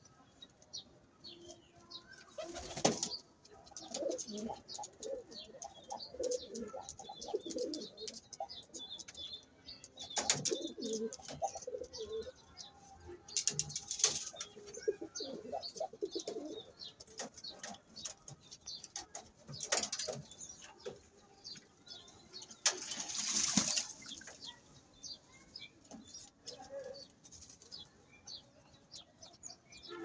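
Pigeons cooing, with about five brief bursts of wing flapping as birds take off or land. Short high bird chirps run throughout.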